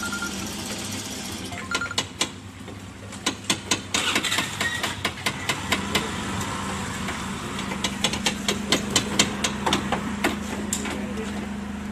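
Metal fuel-pump nozzle knocking and rattling against a car's filler neck as it is shaken, a long run of irregular sharp clicks and knocks starting about two seconds in. A steady low hum runs underneath.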